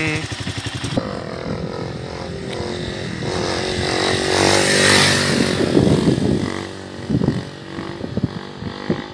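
A 150 cc motorcycle engine idles briefly, then runs at steady, higher revs as the bike is ridden along on its rear wheel in a wheelie, swelling toward the middle and easing off. Several short thumps sound in the second half.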